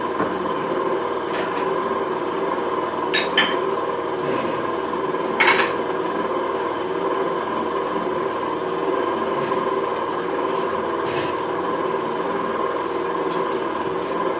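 Electric home screw oil press running, its motor-driven metal screw pressing flaxseed with a steady hum and whine. A few sharp clicks come through about three and five and a half seconds in.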